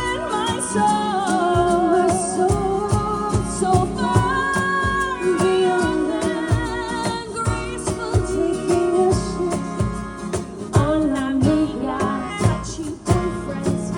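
Two women singing a Broadway show tune with vibrato over a band accompaniment with a steady beat.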